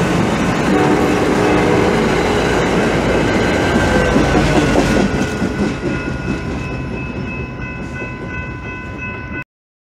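Passenger train passing close by: steady rolling rumble with wheels clacking over the rail joints, and a train horn sounding briefly about a second in. The rumble is loudest about halfway through as the trailing EMD F59PHI diesel locomotive goes by, then fades as the train recedes, and the sound cuts off abruptly just before the end.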